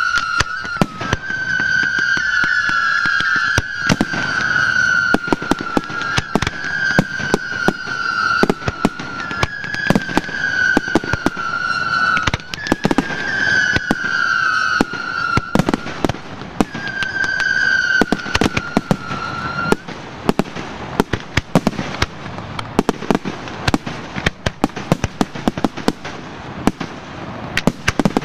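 Aerial fireworks going off: a dense run of sharp bangs and shell bursts. For the first two-thirds, whistling fireworks sound over them in a string of back-to-back whistles, each slightly falling in pitch. The whistles stop about twenty seconds in, and the bangs continue.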